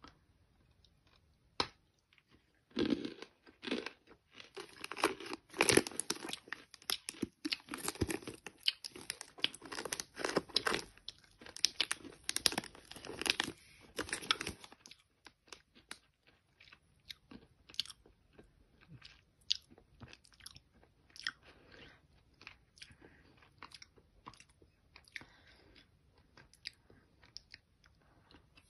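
Chewing and crunching chunks of smoked edible clay in the mouth, dense and loud for about twelve seconds from a few seconds in, then slower, sparser crunches.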